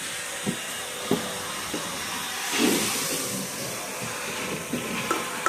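Hoover garage utility vacuum running, a steady rushing hiss of air drawn through the hose, with a few light clicks and a louder surge of suction about two and a half seconds in.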